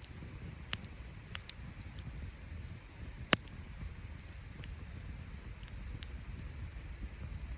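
Wood campfire burning, with a few sharp crackling pops from the burning wood, the loudest about a third of the way in, over a low steady rumble.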